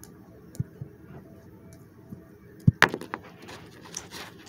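Handling noise: a couple of soft thumps, then a sharp knock and click about two and a half seconds in, followed by faint crackling rustles.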